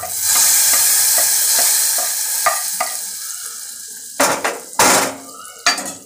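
Hot oil tempering of whole spices (fennel, star anise, kalpasi, bay leaf, cardamom, cloves, cinnamon) poured into a pot of chicken curry, sizzling loudly at first and dying away over a few seconds. Near the end come two short loud clatters of the metal ladle against the pan.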